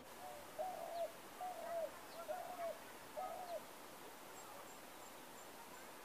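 Dove cooing: about five short, soft coos, evenly spaced about half a second apart, stopping about three and a half seconds in.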